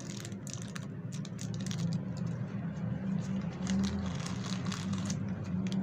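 Small clicks and light rustling of microphone accessories and packaging being handled, over a steady low hum.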